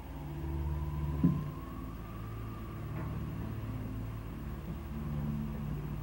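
Low, steady droning hum with a faint thin tone above it that rises slightly and then holds; a single knock comes about a second in.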